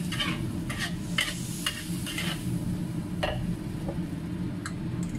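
Metal spatula scraping and tossing beef and bell peppers in a wok while they fry and sizzle. There is a quick run of scrapes in the first two and a half seconds and one more a little past three seconds, over a steady low rumble.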